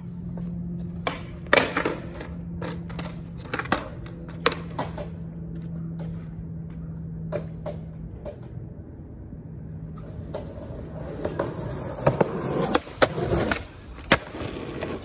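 Skateboard on concrete: wheels rolling and sharp wooden clacks of the tail popping and the board landing, busiest and loudest near the end. A steady low hum runs under the first half.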